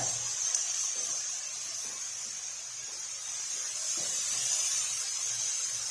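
Chicken pieces with onions sizzling in oil in a frying pan as they brown, a steady high hiss.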